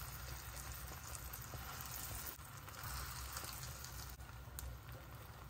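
Buttered, Parmesan-coated bread frying in a hot skillet: a steady, soft sizzle, with a few faint clicks.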